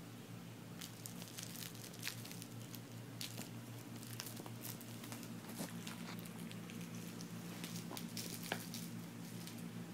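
A cat chewing and biting a fabric catnip toy and rubbing it against her face on carpet: irregular soft crackles, clicks and rustles, over a steady low hum.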